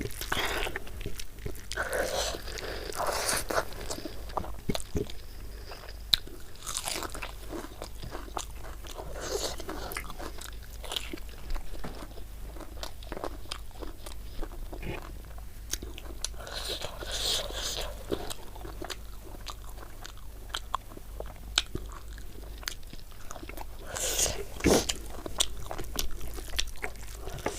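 Close-miked eating: biting and chewing a meal of rice with chicken gravy, with crunchy bites and many small wet mouth clicks. The chewing is busiest near the start, in the middle and near the end.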